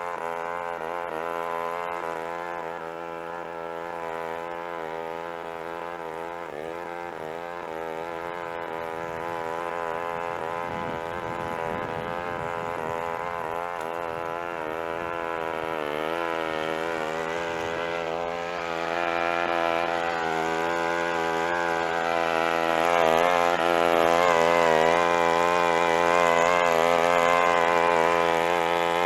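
Lawn mower engine running steadily, its pitch wavering a little as it works. It grows louder about two-thirds of the way through.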